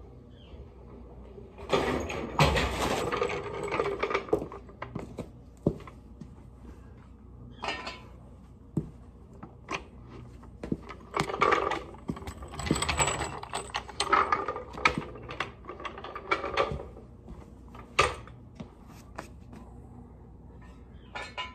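Red steel hydraulic floor jack being wheeled across a concrete garage floor and set under a car, rattling and clanking in irregular bursts, with a few sharp metal clicks near the end.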